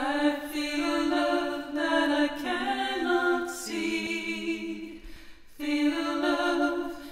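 Choir singing unaccompanied in long held notes, the sound thinning out about five seconds in before the next phrase starts.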